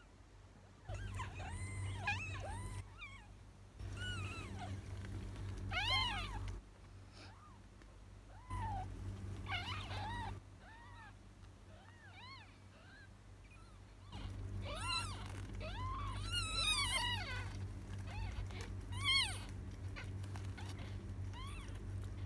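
Newborn kittens mewing: many short, high-pitched squeaks that rise and fall, coming thickest in the second half. A low rumble sounds beneath them in several stretches of a few seconds each.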